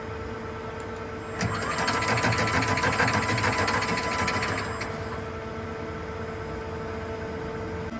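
Urawa UB-75 machining center running with a steady hum and whine. About a second and a half in, a louder, rapid rhythmic mechanical clatter starts, lasts about three seconds, then dies away. The whine cuts off near the end.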